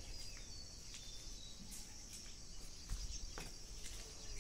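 Steady high-pitched insect drone, crickets or a similar chorus, with a few faint clicks and scuffs while two dogs play-wrestle.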